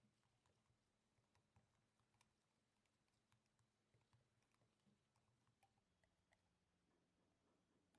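Near silence: room tone with faint, scattered small clicks at irregular intervals.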